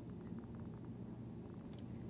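Faint steady low hum with light, scattered ticks of a stylus drawing on a tablet screen.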